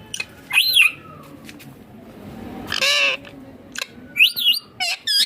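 Indian ringneck parakeet giving a few short, high, sweeping squawks, spaced out over a few seconds, with a couple of sharp clicks near the end.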